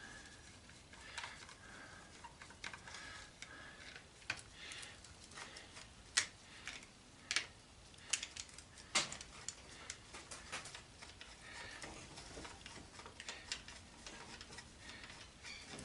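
Flat-blade screwdriver working screws loose from an antenna rotator: faint, irregular clicks and light scrapes of metal on metal, with a few sharper clicks around the middle. The screws are turning out easily.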